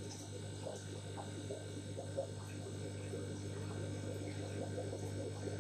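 Steady low electric hum of aquarium pumps, with soft, irregular gurgling and bubbling of water as air is purged from the siphon water-change lines feeding the tanks.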